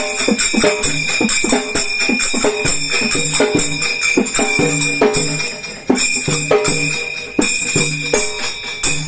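Folk percussion music: jingling metal like a tambourine over evenly spaced drum strokes, about two to three a second, breaking off abruptly near the end.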